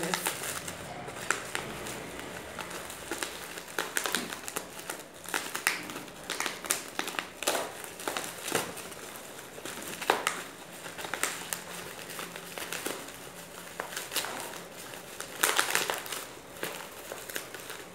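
Clear plastic bubble wrap and taped packaging being crinkled and pulled at by hand while unwrapping a parcel, with irregular crackles and rustles.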